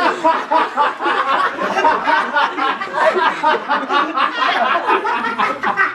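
Several young men talking over one another and laughing.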